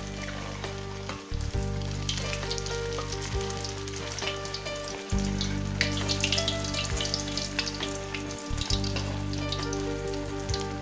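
Fish cutlets coated in beaten egg frying in hot oil in a wok, a steady crackling sizzle.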